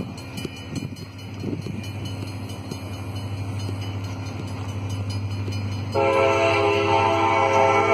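An approaching CSX diesel freight locomotive: a low steady rumble grows slowly louder, then about three-quarters of the way through its air horn starts sounding one loud, long held blast, the warning for a grade crossing.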